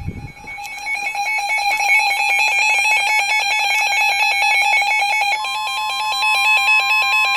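Emergency Alert System header: rapid warbling digital data tones, switching quickly back and forth between two pitches. About five seconds in, a steady single alert tone starts on top of the data tones.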